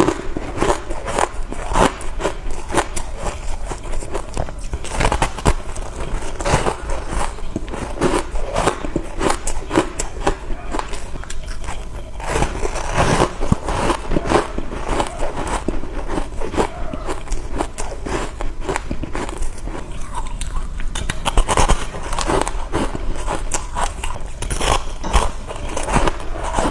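Close-up crunching and chewing of refrozen shaved ice: a dense, continuous run of crisp crackles as the packed ice is bitten and ground between the teeth.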